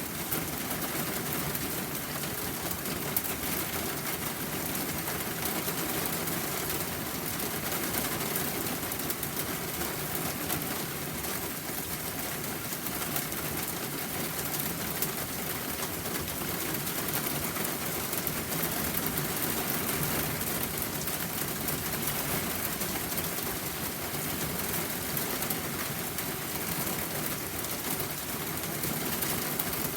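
Steady rain falling, an even hiss without pause, with a few faint ticks.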